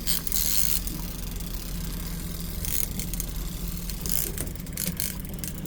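Boat engine running steadily at low speed, with scattered clicks and rattles of gear on board.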